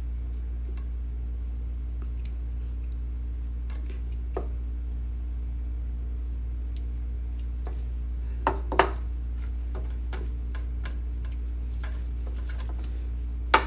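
Kitchen tongs clicking and tapping against a pan and a serving bowl as stir-fried beef and vegetables are picked up and plated: faint scattered clicks, two louder taps about two-thirds of the way through and a sharp click near the end, over a steady low hum.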